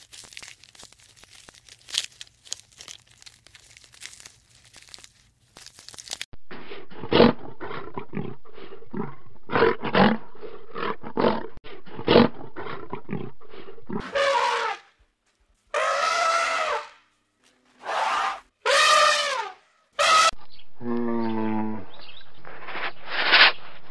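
Scattered clicks and crunching for the first several seconds, then repeated louder strokes, then a series of big-cat roars and growls about a second long each, with short gaps between them.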